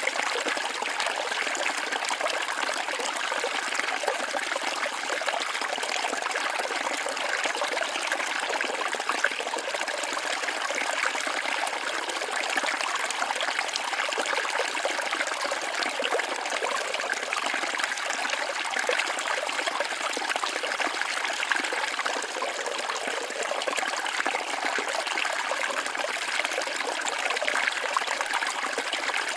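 Waterfall: water falling and splashing in a steady rush, mostly in the middle and upper range with little deep rumble.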